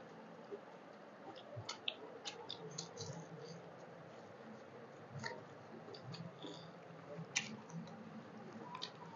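Close-miked eating by hand: quiet, scattered wet clicks and smacks of chewing and of fingers working rice and curry.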